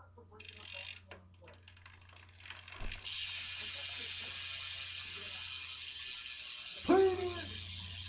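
G-Sport ratchet hub on a BMX rear wheel freewheeling: after a few scattered clicks and a thump, the wheel is spun and the hub's ratchet buzzes steadily, its clicks so fast they run together. About seven seconds in, a brief loud pitched sound falls in pitch over the buzz.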